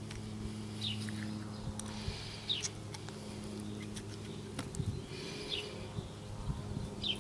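A bird gives a short, high, falling chirp four times, about one and a half to three seconds apart, over a steady low hum. Faint knocks come from a coconut shell half being turned in the hands.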